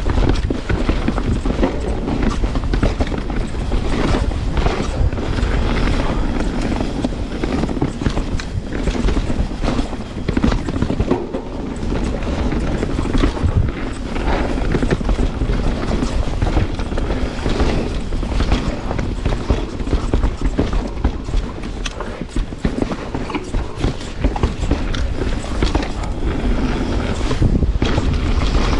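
Canyon Spectral 29 mountain bike descending a dirt trail: a continuous rumble of tyres on the ground with constant rattling and knocking from the bike over rough terrain.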